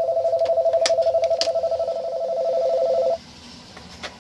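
Telephone ringing: a steady, warbling two-tone electronic ring that cuts off abruptly about three seconds in, with a few sharp clicks along the way and after it.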